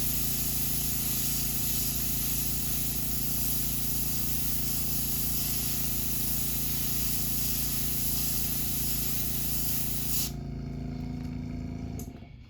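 Airbrush spraying paint onto a crankbait lure: a steady hiss over a low steady hum. The hiss stops about ten seconds in, and the hum carries on alone until shortly before the end.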